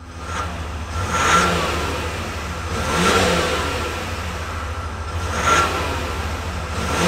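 Exhaust of a Ram 1500's 3.0L EcoDiesel V6 turbodiesel at a steady idle, blipped three times, about every two seconds. Each rev rises in pitch and falls back to idle.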